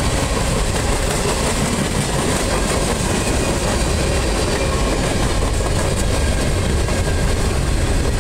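Freight cars of a long mixed freight train rolling past close by: steady, loud noise of steel wheels on the rails, heaviest in the low end.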